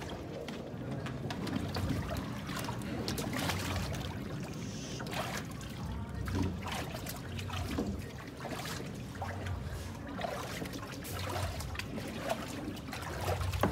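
Water trickling and splashing over a dog being bathed, in irregular splashes as its wet coat is soaked and rubbed.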